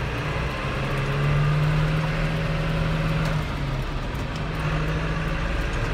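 Vehicle engine and road noise heard from inside the cab while driving: a steady low hum over an even rush of tyre noise, its pitch dipping slightly a little past halfway.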